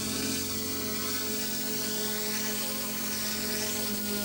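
OMP Hobby M1 mini RC helicopter's brushless direct-drive main and tail rotors whining steadily while it hovers low and sets down. The pitch holds steady throughout.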